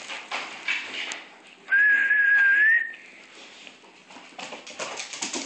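A single high whistled note, held steady for about a second and rising slightly at its end, over faint scuffling and clicks.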